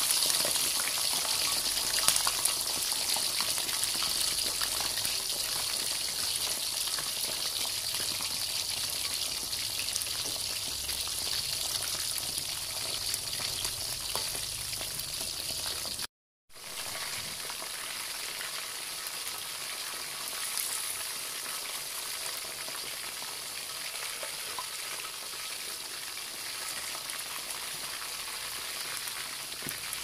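Hot oil sizzling and crackling around whole fish deep-frying in a wok, a dense steady sizzle. It cuts out for a moment about halfway through, then carries on a little quieter.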